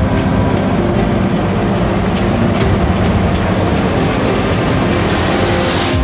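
Claas Lexion 770 tracked combine harvester running while threshing wheat: a dense, steady machine noise with a light rattle, growing brighter over the last second.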